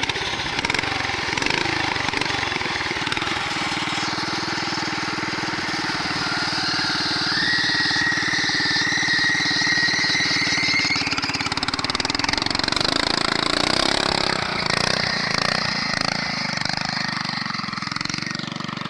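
Honda GX340 11 HP single-cylinder four-stroke engine running steadily under the go-kart. A thin whine climbs in pitch from about seven to eleven seconds in, and the engine note drops a little past the middle.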